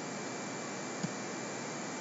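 Steady microphone hiss, with one faint click about a second in.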